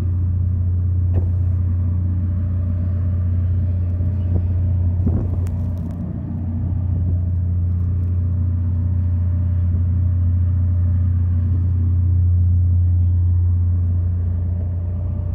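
Vehicle engine running with a steady low drone, holding an even pitch and level throughout.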